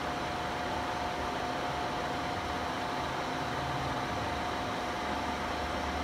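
Butler Elgamill bed milling machine running: a steady mechanical hum and hiss with a constant whine.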